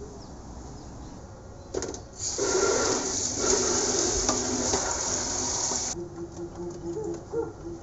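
Water from a kitchen tap's spray head hisses onto a plastic food container being rinsed by hand in a stainless steel sink. A short spurt comes a little under two seconds in, then a steady spray from about two seconds, and it cuts off sharply about six seconds in as the tap is turned off.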